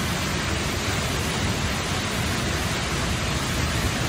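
Steady rushing of a waterfall and water pouring across a rock road.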